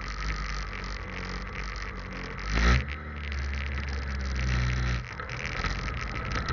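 Motorcycle engine heard through a cheap action camera with no proper microphone, so the sound is muffled and distorted. It ticks over at the lights with a steady low hum, and there is a brief loud rush a little over two and a half seconds in. From about four and a half seconds the engine note strengthens as the bike pulls away, with a short dip around five seconds.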